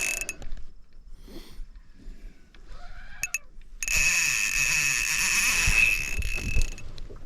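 Fishing reel's drag buzzing as a hooked yellowcheek carp runs, pulling line off the reel: briefly at the start, then again for nearly three seconds from about four seconds in. The fish is still strong and not yet played out.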